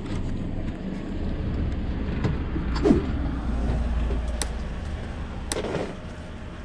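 Road noise from the open back of a moving pickup-truck taxi: steady low rumble of the engine and tyres with a rush of air, and a few sharp knocks or rattles through the middle.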